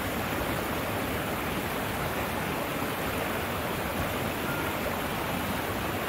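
Shallow mountain stream rushing over rocks in a steady, even wash of water noise.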